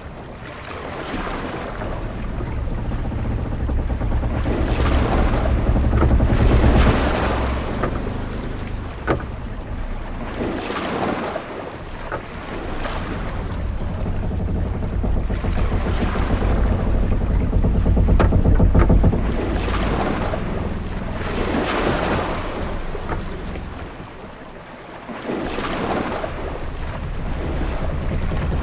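Ship-at-sea ambience: waves washing against a ship's hull in surges every few seconds over wind and a deep rumble that swells and fades, with a few short knocks in between.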